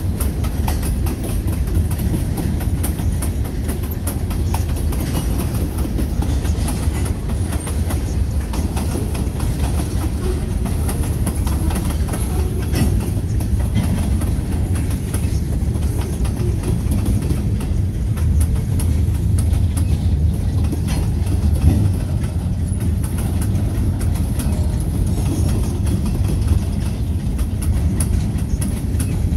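Freight cars of a departing train rolling past: a steady low rumble of steel wheels on rail, with clicking from the wheels over the track.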